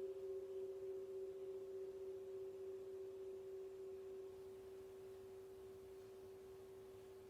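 Small gong's struck tone ringing on and slowly fading away: a steady low tone with a fainter higher overtone, dying down gradually.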